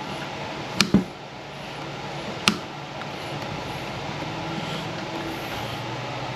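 Three sharp metallic taps of a hammer on a drift punch, driving the rear sight out of a pistol slide: two close together about a second in, one more a second and a half later. A steady low hum runs underneath.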